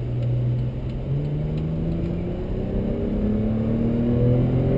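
Chrysler 200 sedan's engine, heard from inside the cabin, pulling hard under heavy throttle, its pitch climbing slowly and steadily as the car gathers speed.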